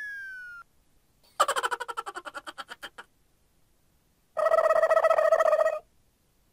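Cartoon comedy sound effects played one after another: a falling whistle-like glide that ends, then a fast fluttering run of chirpy pulses that fades out, then a steady buzzy tone about a second and a half long.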